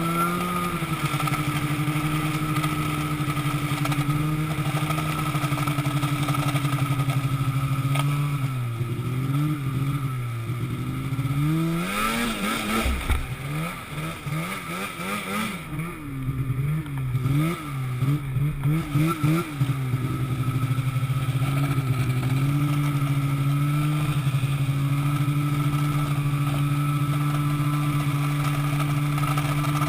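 An engine running at a steady speed. Between about eight and twenty seconds in, its pitch repeatedly drops and surges back up, then it settles to a steady note again.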